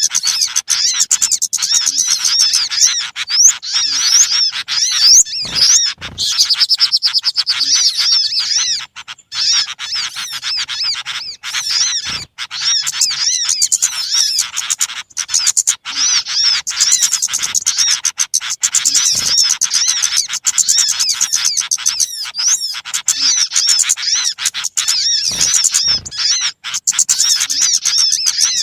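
Bird-lure recording of many small birds chirping at once: a busy chorus of quick, high calls with no break.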